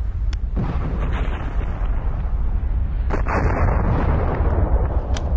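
Sound effect of an underwater volcanic eruption: a deep, continuous rumble broken by several sharp blasts, the strongest about three seconds in.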